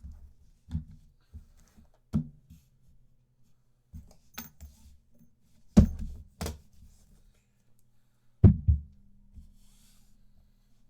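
Trading cards and their packaging being handled on a table: scattered clicks and knocks, the loudest about six seconds in and again near the end, over a faint steady hum.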